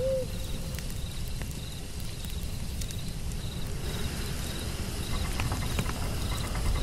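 Night-time outdoor ambience of crickets chirping steadily over a crackling campfire, with a low rumble underneath.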